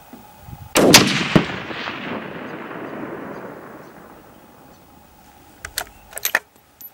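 A single shot from a Lithgow LA102 bolt-action rifle in .243 Winchester, a sharp report with a long echo that fades over about three seconds. Near the end come a few quick metallic clicks as the bolt is worked for the next round.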